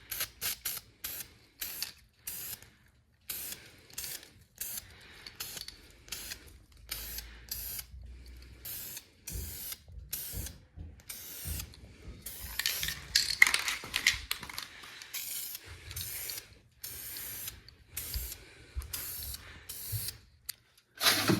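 Aerosol can of heat-resistant ceramic paint being shaken, its mixing ball rattling, and sprayed in many short bursts, with a longer, louder spell of spraying about halfway through.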